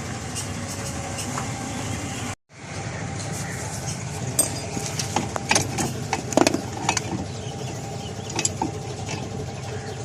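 Scattered light metal clinks and rattles as drum-brake parts are handled, over a steady background engine hum. The sound cuts out for a moment about two seconds in.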